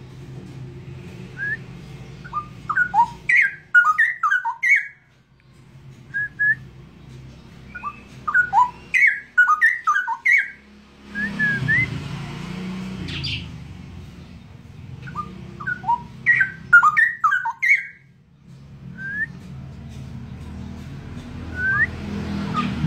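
Caged straw-headed bulbul (cucak rowo) practising its song: three short bursts of quick, clear whistled notes with a few single notes between them, a young bird still learning to sing. A steady low hum runs underneath, and a rushing noise comes about halfway through.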